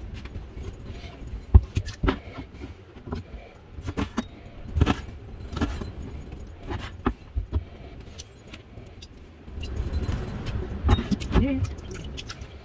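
Kitchen knife slicing a squid tube into rings and knocking on a plastic cutting board: irregular sharp taps and clicks, several of them loud.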